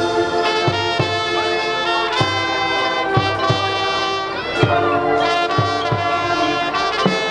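High school marching band playing: the brass section holds full chords that change every second or two, over a steady drum beat.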